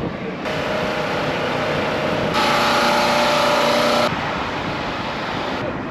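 Downtown street ambience with road traffic, changing abruptly several times as short clips are cut together. The loudest stretch, in the middle, carries a steady mechanical hum over the traffic noise.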